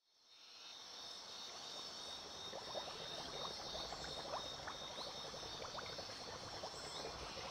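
Quiet waterside ambience fading in: water trickling and lapping with many small scattered plips, over a steady high-pitched ringing layer.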